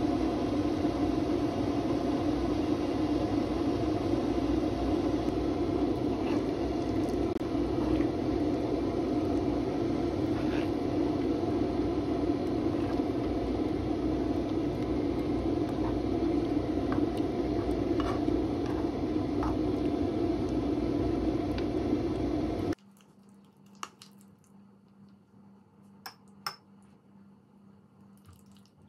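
Quince jam boiling in a pot, a steady bubbling noise with occasional small pops, which cuts off abruptly about 23 seconds in. After that, a few light clinks.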